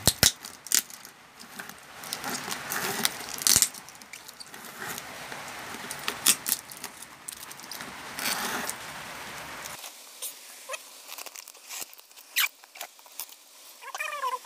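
Plastic wrapping and packing tape crinkling and rustling, with scissors snipping through them in irregular clicks. Near the end, a few short squeaky calls.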